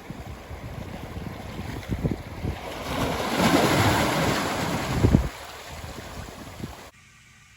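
Ocean surf breaking on the shore, with wind buffeting the microphone. The wash swells loudest a few seconds in, then eases, and the sound cuts off abruptly near the end.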